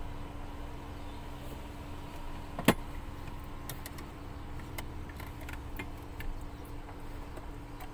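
A car seat being worked loose from its mounts: one sharp knock about two and a half seconds in, then a few faint clicks of plastic and metal, over a steady low hum.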